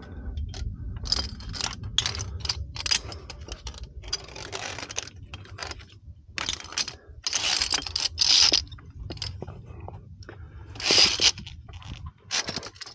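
Irregular scraping and crunching movement noises of a climber on a via ferrata: about a dozen short scrapes spread unevenly, with a low rumble under the first half.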